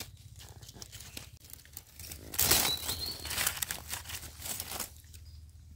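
Dry fallen leaves and twigs crackling and rustling as gloved hands and a knife dig through leaf litter around a mushroom, with a busy burst of crackles about halfway through.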